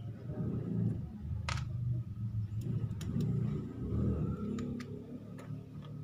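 A low rumble that swells and fades, under a sharp click about a second and a half in and a few lighter clicks later, as the SIM tray is taken out of a Samsung J4 Plus.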